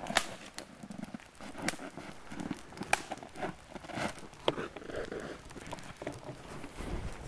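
Footsteps crunching in very cold snow: a string of irregular sharp crunches. Near the end there is a low rumble of the camera being handled.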